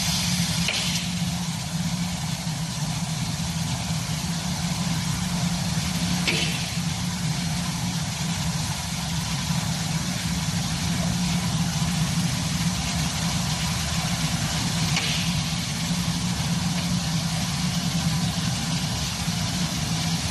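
Steady machine hum from a running CNC glass cutting machine, with three brief faint clicks or squeaks spread through it.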